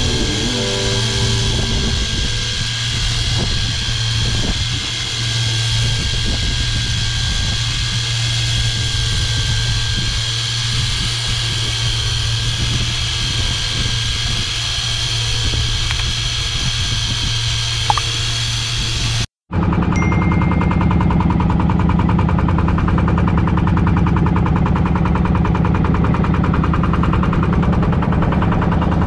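A small fishing boat's engine running steadily under way, with the hiss of wind and water over it. After a brief break about 19 seconds in, the engine carries on with a heavier, lower sound and less hiss.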